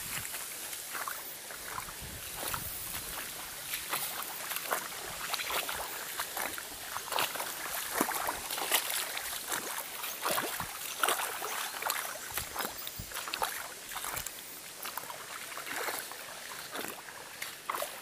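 Footsteps wading through shallow river water and over wet gravel: irregular splashing, sloshing and crunching steps over a steady rush of water.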